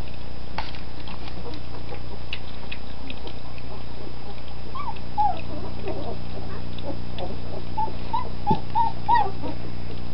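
Young puppies feeding together from a bowl: small wet lapping and smacking clicks throughout, and from about halfway through, a series of short high squeaks and whimpers. A steady low hum runs underneath.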